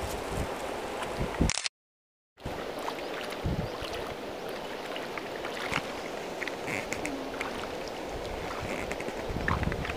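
Shallow river water running over stones, a steady rush with scattered small clicks and splashes. The sound cuts out for under a second about one and a half seconds in.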